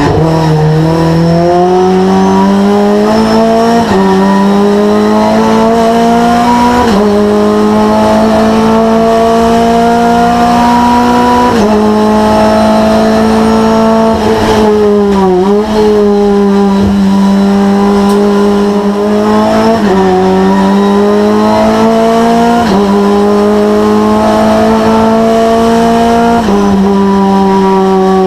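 Renault Clio Cup race car's engine heard from inside the cabin, pulling hard: its pitch climbs steadily and drops sharply at each of several gear changes. About halfway through it dips briefly as it slows for a corner, then picks up again.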